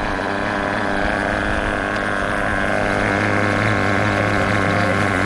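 Nitro RC truck's small glow-fuel engine idling steadily, a constant buzz that holds one pitch.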